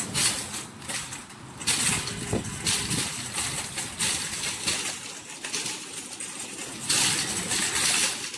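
Empty wire shopping cart rattling loudly as it is pushed over a concrete sidewalk, its wheels and metal basket going clackity-clackity. The rattle gets louder about two seconds in and again near the end.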